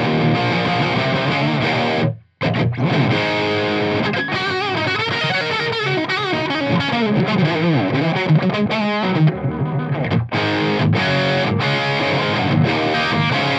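Electric guitar played through a Marshall JCM800 2203 100-watt tube head with the preamp on 10, heavily distorted, into a Marshall cabinet with Celestion G12-65 speakers. Sustained chords stop dead about two seconds in, then a lead line of bent, wavering notes follows, and chords return near the end.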